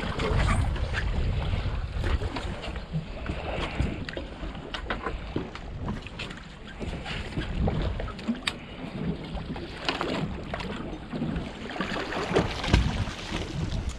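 Wind buffeting the microphone aboard a boat at sea, with scattered knocks and clatters throughout.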